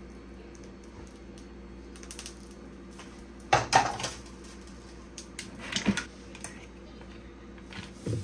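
Cooking pot and utensils being handled, a few sharp metal knocks and scrapes, loudest about three and a half seconds in and again near six seconds, as mussels and sauce are poured and scooped out of the pot.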